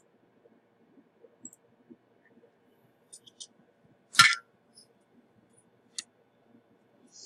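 Small tools handled on a repair bench: a few faint scattered clicks, then one sharp clink about four seconds in and a lighter tap two seconds later.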